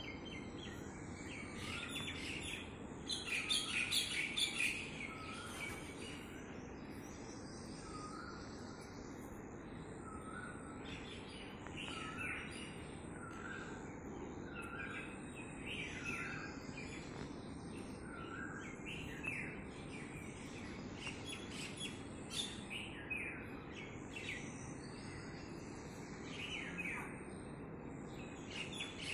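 Common mynah calling: a run of short repeated notes, roughly one a second, with a louder burst of higher chattering calls about three to five seconds in and scattered calls later.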